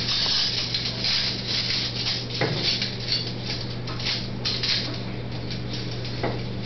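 Irregular scratchy rustling with a couple of soft taps over a steady low electrical hum.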